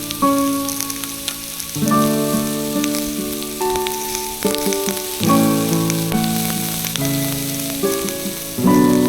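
Background music with sustained chords changing every second or two, over a steady sizzle of food cooking on a wood fire, with scattered crackles.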